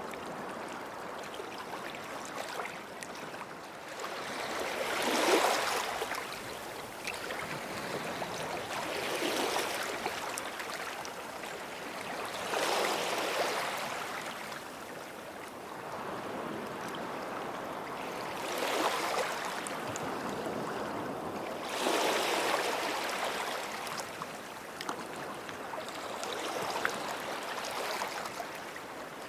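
Small waves breaking and washing up the shore, one swell every three to four seconds over a steady hiss of water.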